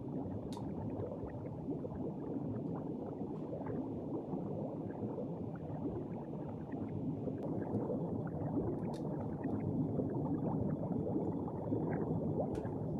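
Steady underwater bubbling and gurgling, a dense low churn of bubbles, a little louder in the second half, with a few faint clicks.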